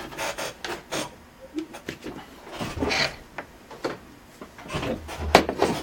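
Irregular clicks and short scraping rubs as hard laptop parts are handled and moved about on a work surface.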